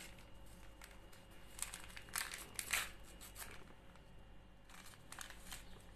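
Wire whisk stirring thick cake batter in a plastic bowl, making soft, irregular swishes and scrapes.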